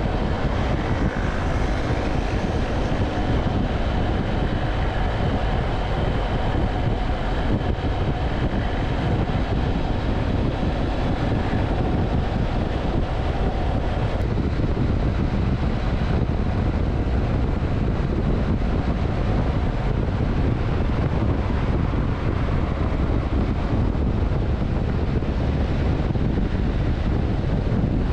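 Steady wind rush over the microphone mixed with the BMW F700GS's parallel-twin engine running evenly while the motorcycle cruises at highway speed.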